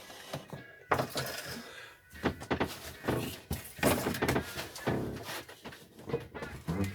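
Irregular knocks and clunks of the lawn mower and tools being handled, several sharp strikes scattered through a few seconds.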